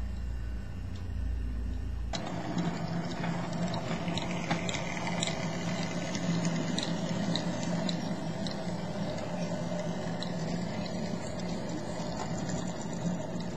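A low hum, then from about two seconds in an OO gauge model locomotive's electric motor whirring steadily as the train runs along the track, with scattered light clicks.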